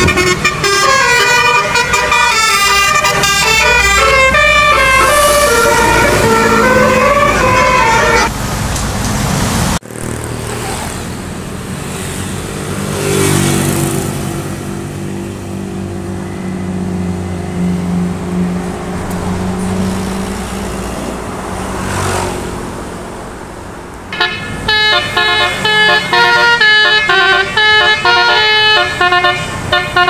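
Tour buses' multi-tone telolet air horns playing quick stepping melodies. After a break, a bus engine and passing traffic swell by twice, and near the end another telolet horn tune starts up.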